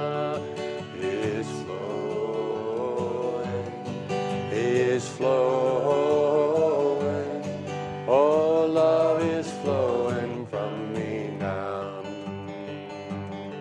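Country-style song with plucked guitar accompaniment under a lead melody line whose notes glide and waver, swelling in two long phrases in the second half.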